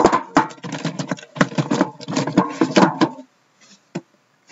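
Cardboard case scraping and rustling as it is pulled up and off a stack of sealed card boxes, with several sharp knocks of cardboard against cardboard; it stops about three seconds in.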